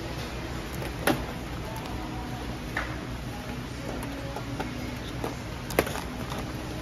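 Steady background hum with a few sharp clicks and lighter ticks over it, the loudest about a second in and again near the end.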